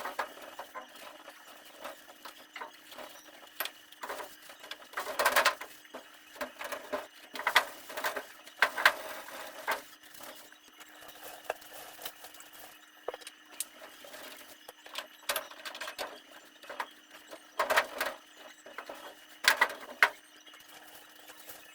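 Household items being handled and set down: irregular light knocks, clicks and rustling, with a faint steady hum underneath.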